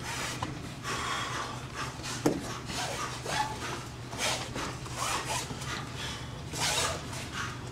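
Short rasping swishes and rubs at irregular intervals, about five or six, from a karateka performing a form barefoot on foam mats.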